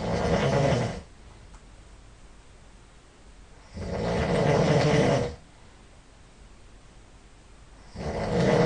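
A person snoring loudly while asleep, with long snores about four seconds apart and quiet breathing pauses between them.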